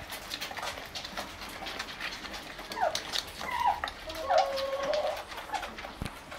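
Shih Tzu puppies whimpering and squeaking while nursing from their mother, over a patter of soft clicks. A few short squeals come about three seconds in, and a longer whine comes a little before five seconds.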